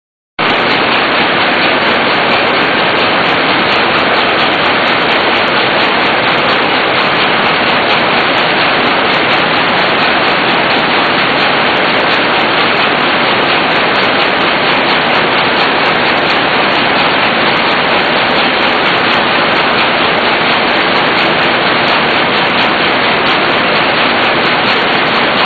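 Small portable speaker putting out a loud, steady rushing hiss with no clear beat or pitch, switching on abruptly at the start.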